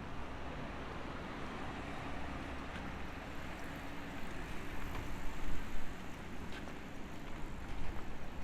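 Urban street ambience: a steady low rumble under a wash of background noise, with a few faint clicks, growing a little louder about five seconds in.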